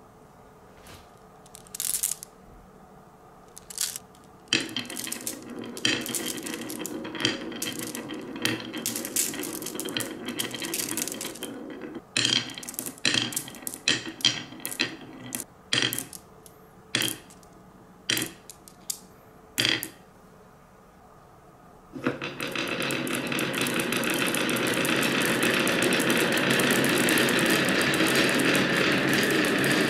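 Glass marbles on a wooden HABA wave-slope marble run: first scattered sharp clicks and short rolls as marbles are set into the grooves, then, about two-thirds of the way through, a steady loud rattle of many marbles rolling down the wavy wooden grooves together.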